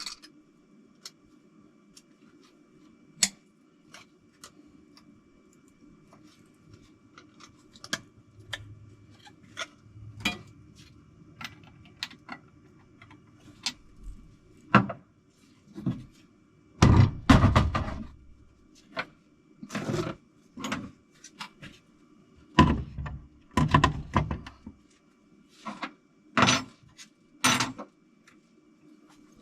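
Objects being handled and set down: scattered clicks, clinks and knocks, with heavier clunks in two clusters, about midway and again a little later, over a steady low hum.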